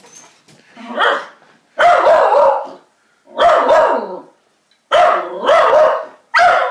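Jack Russell × Beagle mix barking excitedly in drawn-out, wavering runs, each about a second long, five times with short pauses between.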